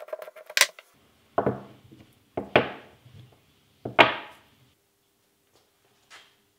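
Hardened steel jaws of a three-jaw lathe chuck being set down one at a time on a wooden bench: a light click, then three sharp metallic knocks, each with a short ring, the last the loudest.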